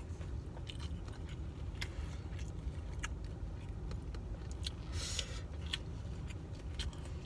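A person chewing food, with small scattered clicks and a brief rustle about five seconds in, over a steady low hum.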